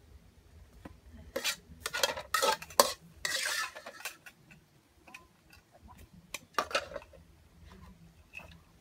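Metal spoon scraping and clanking against a stainless steel wok: a quick run of clanks about a second and a half in, a longer scrape just after, and a few more knocks later.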